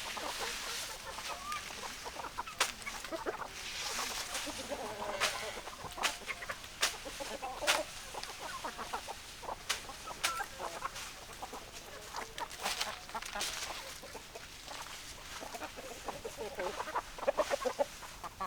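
Domestic hens clucking, many short calls overlapping throughout, with a scattering of sharp clicks among them.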